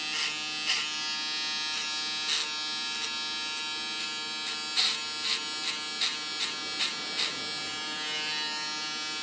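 Andis ProFoil Lithium foil shaver running with a steady buzz, pressed lightly to the nape and drawn downward in slow strokes, with brief louder rasps as the foil passes over the stubble, most of them between about five and seven seconds in.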